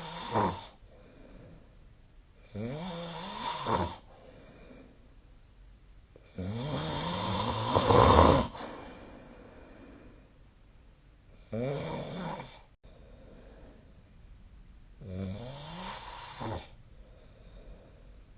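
A sleeping person snoring: a run of snores roughly every four seconds, each lasting one to two seconds, the loudest about eight seconds in.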